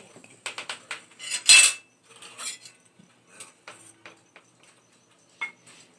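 Cutlery clinking and scraping against china plates at a meal: a run of clicks, a loud ringing scrape about a second and a half in, then scattered clinks, one sharp clink near the end.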